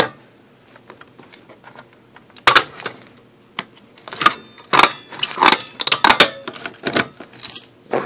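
A ring of keys jangling and clicking close up, in quick bursts from about two and a half seconds in, as a key is worked in a fire alarm pull station's reset lock.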